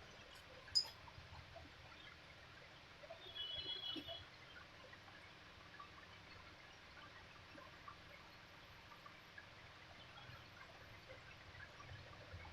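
Near silence: faint room noise, with one sharp click about a second in and a brief high squeak a little after three seconds.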